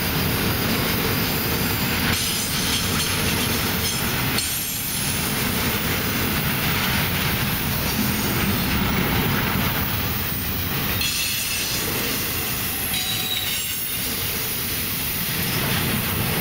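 CSX double-stack intermodal train rolling past: a steady rumble and rattle of the wheels and cars on the rails, with faint high wheel squeals coming and going.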